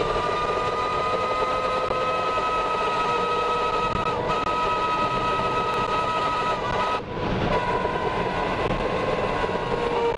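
Tornado winds around the Tornado Intercept Vehicle: a dense rushing roar of wind and rain with a steady high whistle over it, which breaks off briefly twice, about four and seven seconds in.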